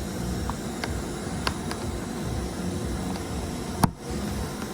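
A few light plastic clicks and one sharp snap just before four seconds in, as a small trim cover on the door card of a Citroen DS3's front door is prised off, over a steady low hum.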